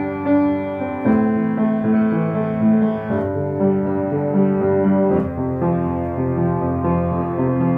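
Solo piano playing a slow piece, new chords struck about once a second and left to ring into one another.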